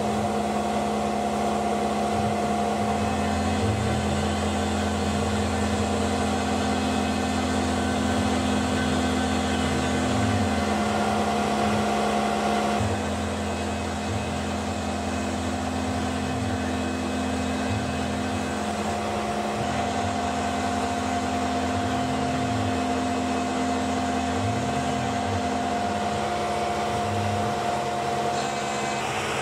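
CNC milling machine cutting a metal part with an end mill under flood coolant: steady spindle and cutting noise with several constant tones and short rising and falling motor tones, dropping a little in level about halfway through.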